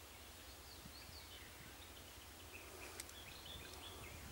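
Faint birdsong in a wooded valley: short chirped notes sliding up and down in pitch, busiest in the second half, with one faint click about three seconds in.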